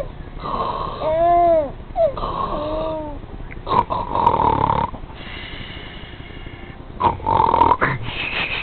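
Repeated snoring: four snores in all. The first two each end in a whistle that rises and falls in pitch, about a second and a half apart, and the later two are longer, without the whistle.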